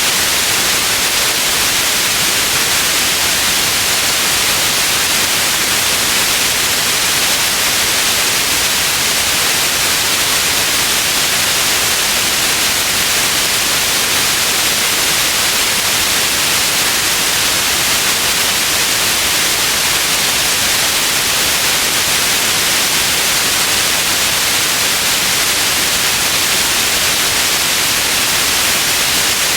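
Steady white noise: an even, unchanging hiss, strongest in the upper frequencies.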